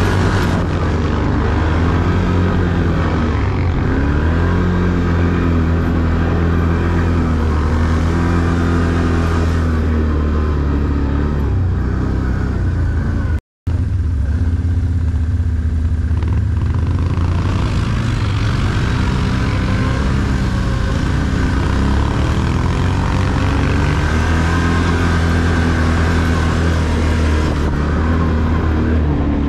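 ATV engine running under way, its pitch rising and falling with the throttle. The sound drops out completely for a split second about halfway through.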